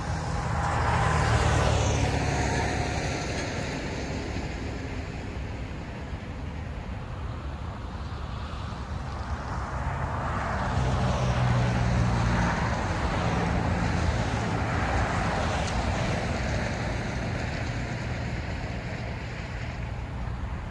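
Freight train led by diesel locomotives with a road slug set, running past with a low engine drone. The drone swells about a second in and again about eleven seconds in.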